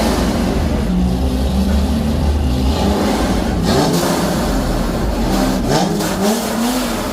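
Chevrolet C5 Corvette's V8 engine running loud, with the revs climbing near the end.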